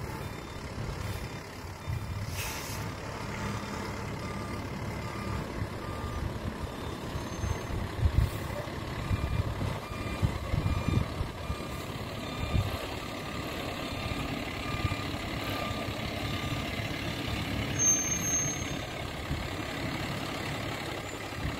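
Heavy flatbed truck's diesel engine running as it manoeuvres slowly, with its backup alarm sounding repeated beeps.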